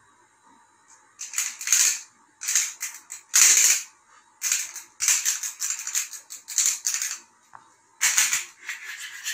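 Plastic emoji bubble wand toy rattling as it is shaken, in a string of short bursts starting about a second in.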